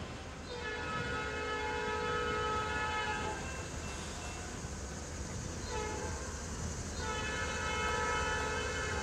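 Air horn of a Metra diesel locomotive at the far end of a commuter train, heard from a distance as the train heads away: a long blast, a short one, then another long one, the close of the grade-crossing signal, over the low rumble of the train.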